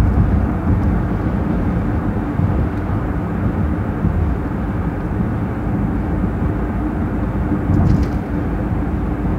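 Steady road and engine noise of a car driving along at speed, heard from inside the cabin: a continuous low rumble with a faint steady hum.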